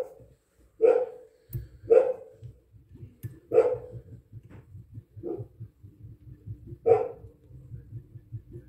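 A dog barking in short single barks, about six of them spaced irregularly a second or more apart.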